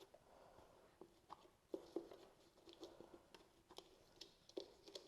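Faint handling noise: a scattering of small clicks and light taps as wiring and small plastic connector parts are worked by hand, over a faint steady hum.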